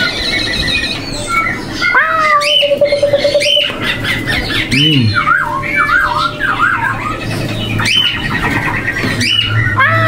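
Caged songbirds calling over one another in loud, whistled notes: short rising and falling whistles, a run of quick repeated sweeping notes in the middle, and a long held whistle near the start and again near the end.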